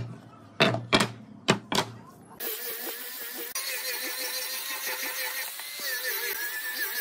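A few sharp wooden knocks as boards are handled on a workbench. Then, from about two and a half seconds in, an angle grinder fitted with a sanding disc runs steadily, sanding a wooden piece, its motor whine wavering slightly.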